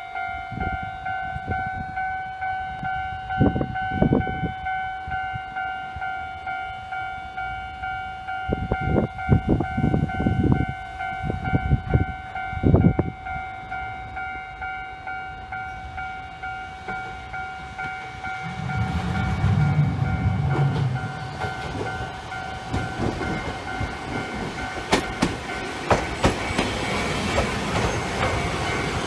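Japanese level-crossing warning bell ringing with an even, rapid two-tone clang while a Hankai tram approaches. Near the end the tram passes close by, its wheels clattering over the rails, and a few dull low thumps come in the first half.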